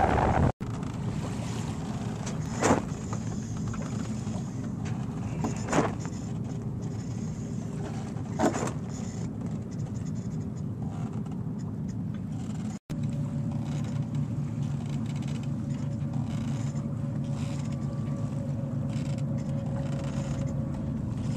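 Sailboat under sail: a steady rush of wind and water along the hull, with a few short knocks in the first half. The sound drops out briefly twice, and after the second break a faint steady hum runs under the rush.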